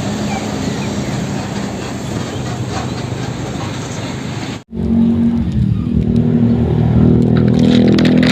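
A motor vehicle engine running steadily. It cuts off abruptly about four and a half seconds in, and a second, louder engine sound starts at once.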